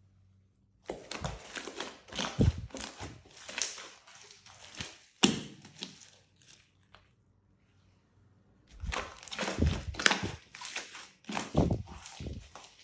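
Slime being squeezed and worked by hand, making sticky crackling and popping squelches. The sound comes in two spells, starting about a second in and again after a quiet pause of nearly three seconds.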